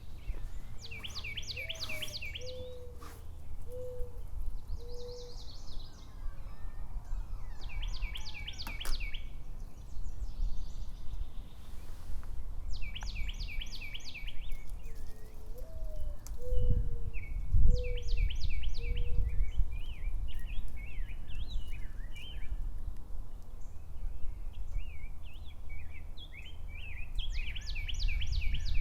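Birds singing outdoors. One repeats a short, fast trilled phrase every few seconds. A lower-pitched bird twice gives a rising note followed by three short hoots. A steady low rumble runs underneath.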